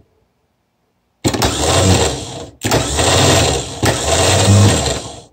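Starter motor from a 1974 BMW R90/6 airhead, bench-run off a jump pack and spinning freely with no load. It whirs with a steady low hum, starting about a second in, breaks off for a moment, then runs again until it cuts off near the end. The owner judges that it sounds okay.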